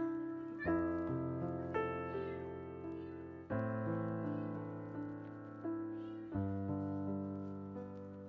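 Background piano music: slow sustained chords, each struck and left to fade, changing every second or two.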